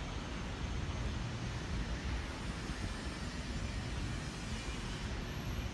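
Steady rumbling noise with no distinct events.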